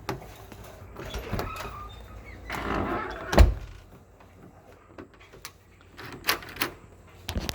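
A newly fitted entry door lockset being worked by hand: the handle and lock are turned, with latch clicks and a rattle, one loud thump about three and a half seconds in, and a few more sharp clicks near the end.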